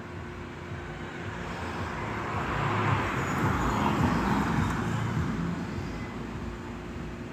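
A vehicle passing by: a rushing engine and road noise that swells to a peak about three to four seconds in, then fades away.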